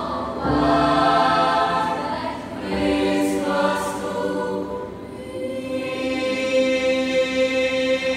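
Mixed-voice choir of girls and boys singing in parts, held chords in a few phrases, the last chord sustained for the final few seconds.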